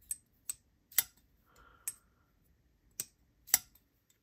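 Vosteed Valkyrie button-lock folding knife being flicked open and shut, its G10-handled sheepsfoot blade snapping into place. About six sharp clicks come at uneven intervals.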